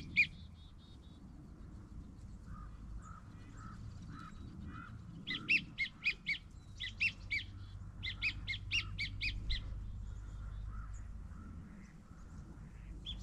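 Bird calls: two runs of short, harsh cawing calls at about three a second, with softer, lower calls before them.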